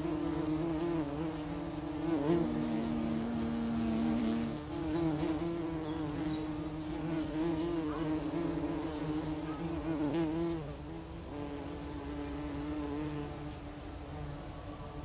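A colony of buff-tailed bumblebees (Bombus terrestris) buzzing. Several steady drones at slightly different pitches overlap and waver, and the sound eases a little near the end.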